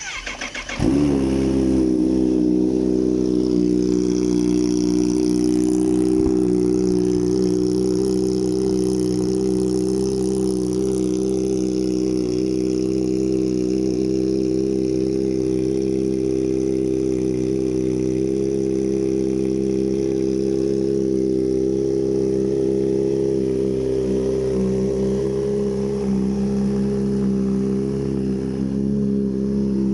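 Kawasaki Z H2's supercharged inline-four engine starting: a brief crank, catching in under a second, then idling steadily.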